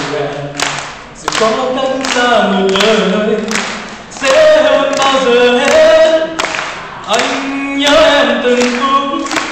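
A man singing a slow Vietnamese love song solo into a microphone, unaccompanied, with held notes that glide between pitches and some claps in between.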